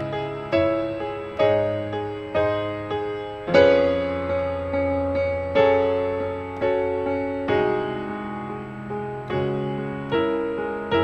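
Slow, gentle piano music: single notes and chords struck about once a second and left to ring and die away.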